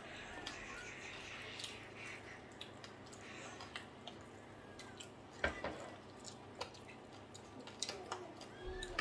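Eating sounds: chewing and lip smacks with scattered small clicks as hands pick food off a metal baking tray, and one louder knock about halfway through.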